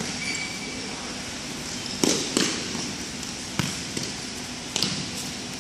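Futsal ball kicked and bouncing on an indoor court: a pair of sharp thuds about two seconds in, then two more about a second apart, over the steady background noise of a large hall.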